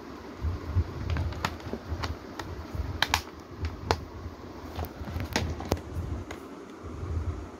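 Plastic Blu-ray case being handled and closed: a scattered series of sharp plastic clicks and taps, the loudest a quick double click about three seconds in, over a low rumble of hands handling near the microphone.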